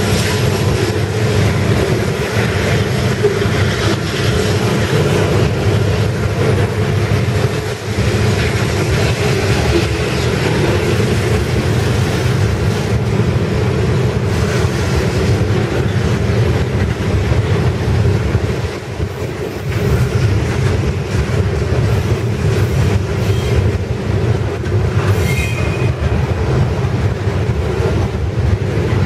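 Freight train's steel-wheeled ballast hopper cars rolling past close by: a steady heavy rumble of wheels on rail. Clicks of wheels over the rail join in later, with a short high wheel squeal near the end.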